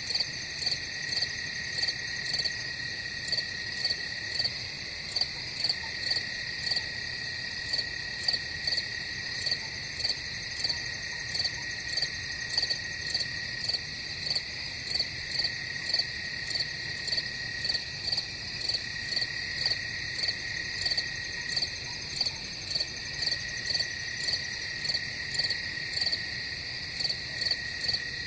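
Crickets chirping in a night chorus: a steady high trill under regular, higher chirps about twice a second.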